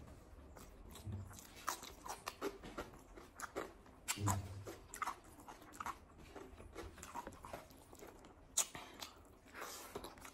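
Close-up eating sounds: irregular wet smacks and clicks of chewing from a man eating rice and arbi-leaf sabji by hand, and a kitten eating from the same banana leaf. A couple of dull thumps come about a second and four seconds in.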